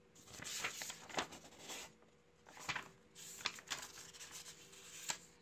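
Paper rustling and crinkling as the printed user guide from the microphone box is handled, in several bursts with sharp little clicks, the last one a crisp snap near the end.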